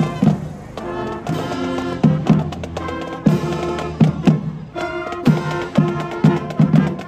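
Marching band playing a tune as it marches: saxophones, clarinets, trumpets and sousaphones holding chords over a steady beat of drum strikes.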